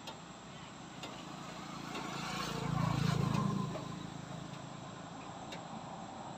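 A motor vehicle passing on a nearby road: its engine and tyre noise swell to a peak about three seconds in, then fade away.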